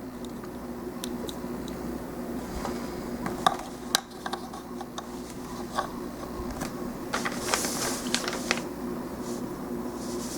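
Plastic model kit parts being handled on a table: scattered small clicks and taps, with a brief rustle about seven to eight seconds in, over a steady low hum.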